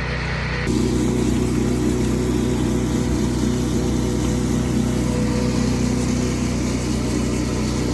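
Pressure washer engine running steadily while a surface cleaner washes stripper and old sealer off stamped concrete. Less than a second in, the sound abruptly gets louder and hissier, and stays that way.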